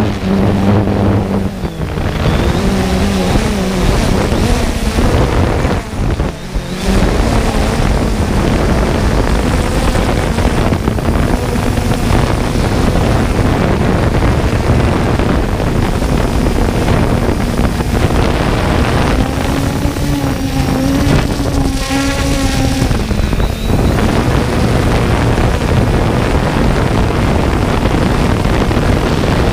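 3DR Solo quadcopter's electric motors and propellers humming, heard from its own onboard camera, with wind noise. The pitch shifts as it manoeuvres and rises for a few seconds a little past the middle.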